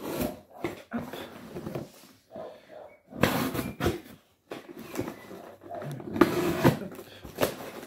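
Cardboard box being cut and torn open: a run of rough, scraping rasps, each lasting up to about a second, with short pauses between them.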